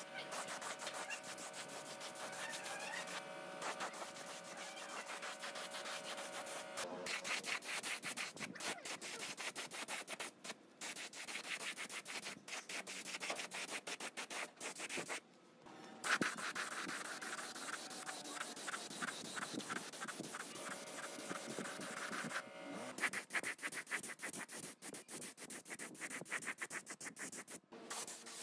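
Compressed-air spray gun with a gravity-feed cup spraying paint: a hissing spray with a fast, scratchy flutter, stopping and starting again several times.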